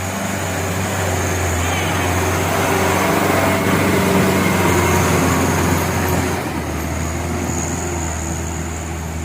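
Truck engine running under load, a steady low drone with road noise. It swells louder toward the middle and eases off near the end, as a truck works past.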